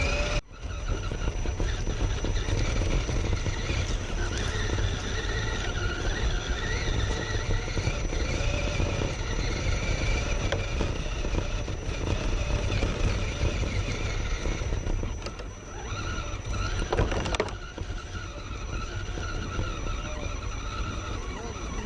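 A vehicle running: a steady low rumble with a wavering motor whine over it. The whine dips briefly past the middle and surges once near 17 s.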